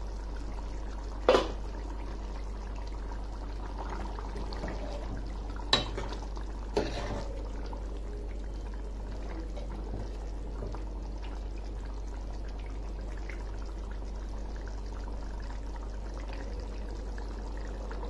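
Mutton gravy simmering and bubbling in a stainless steel pan over a steady low hum, with three sharp metal clinks in the first seven seconds, utensils knocking against the pan.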